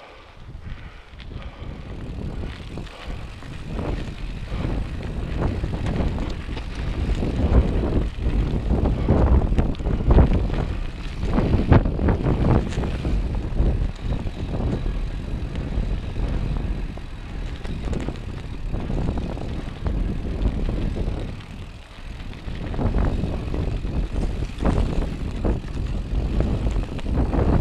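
Mountain bike riding over a dirt singletrack: wind rumbling on the microphone, tyres rolling on dirt and frequent rattles and knocks from the bike over bumps. It builds up over the first few seconds and eases briefly near the end.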